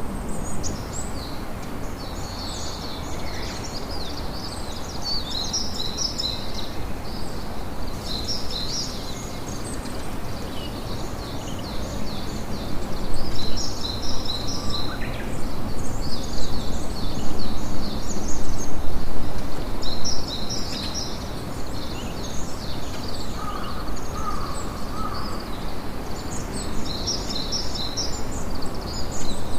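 Sea waves and wind as a steady rushing noise that swells louder for several seconds in the middle, with bursts of high, rapid chirping bird calls every few seconds.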